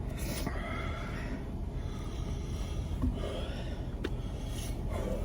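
A person breathing hard in several noisy strokes through the nose and mouth, reacting to the burn of a capsaicin pepper throat spray, over a steady low hum.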